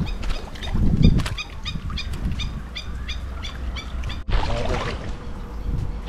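A bird calling in a fast run of short repeated chirps, about four a second, over a low rumble of wind and water. The chirping stops abruptly about four seconds in.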